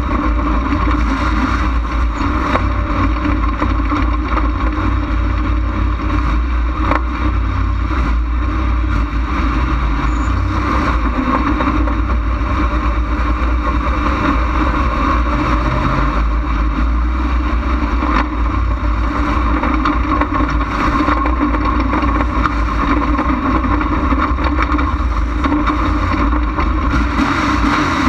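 Dirt-track race car's engine running hard at racing speed, heard close from a hood-mounted camera, a steady loud drone with a heavy low rumble and wind noise.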